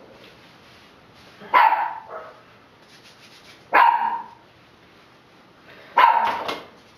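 A pet dog barking three times, single sharp barks spaced about two seconds apart.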